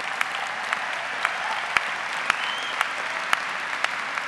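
Large audience applauding steadily, with single sharp claps standing out from the wash.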